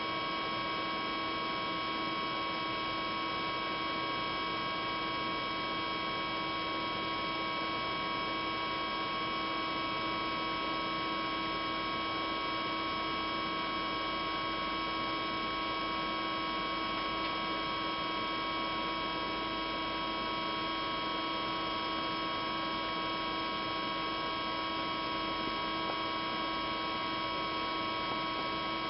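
Steady hum of an idling LVD PPI 110-ton hydraulic press brake, holding several fixed tones over a light hiss without change.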